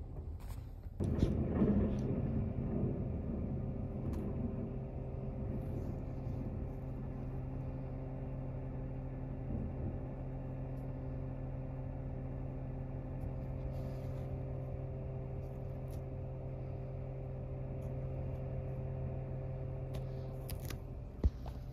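Garbage truck engine running steadily outside, a low, even hum with a steady tone, heard from inside a parked car. It comes in about a second in, a little louder at first, then holds steady.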